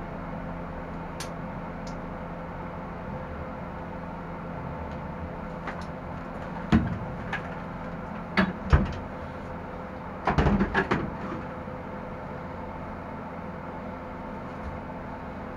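Peugeot 106 race car's engine idling steadily, heard from inside the cabin. A few loud knocks and bumps come about halfway through as a helmet is taken off and set down inside the car.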